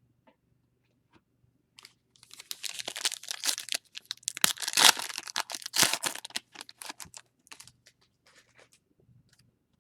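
Foil wrapper of a Panini Chronicles Baseball retail card pack being torn open and crinkled by hand: a dense crackle of sharp clicks that starts about two seconds in, is loudest near the middle and thins to scattered crinkles after about seven seconds.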